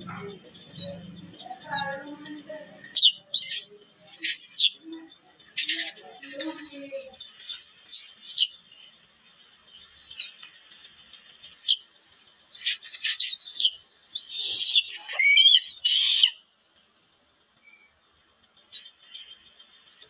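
Eaglets chirping in the nest: a run of short, high-pitched peeps and squeals, busiest through the middle and breaking off about three-quarters of the way in. Low muffled thumps sound under the calls in the first few seconds.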